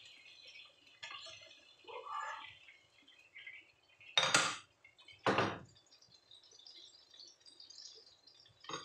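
Spatula scraping and knocking against a wok as stir-fried choy sum is pushed out onto a plate, with two loud strokes about four and five seconds in and light clatter between.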